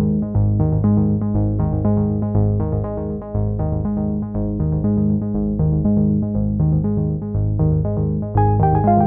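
Electronic synthesizer music: a fast repeating pattern of short notes over a pulsing bass line. A higher melody comes in near the end.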